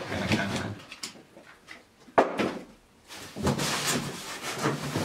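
Cardboard and plastic packaging rustling and scraping as a hand rummages inside a wheel shipping box, with one sharp knock about two seconds in.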